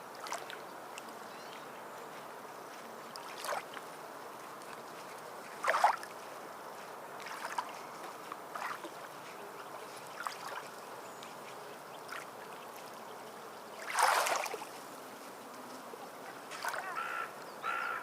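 Water lapping and splashing against a steady background wash, with short irregular splashes every second or two; the loudest comes about fourteen seconds in. Near the end there are a few short pitched sounds.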